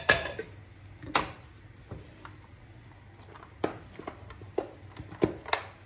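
Sharp clinks and knocks of kitchenware against a stainless-steel cooking pot: one loud ringing knock at the start, another about a second later, then a run of lighter clicks near the end.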